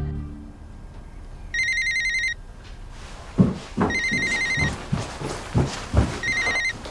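Electronic telephone ringer trilling in three short bursts of about a second each, roughly two seconds apart, with a series of low thumps between the second and third rings.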